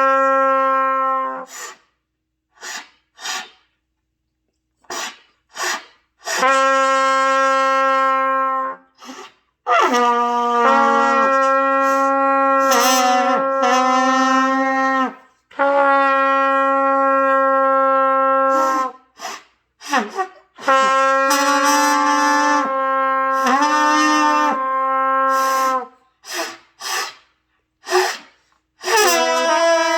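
A trumpet played by a learner: long held low notes around middle C, several lasting a few seconds each, with short breaks and the pitch stepping between notes. There are a few short, clipped notes near the end.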